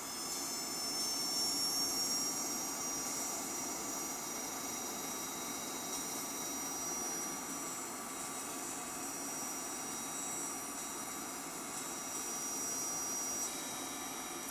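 Miniature aircraft rate gyro's AC-motor rotor running on a two-phase 400 Hz supply: a high, thin whine over a steady hiss. The whine rises slightly in pitch over the first couple of seconds, then holds steady.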